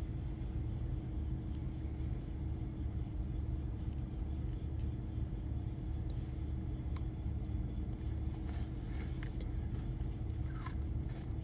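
Steady low rumble with a constant hum, and a few faint clicks over it.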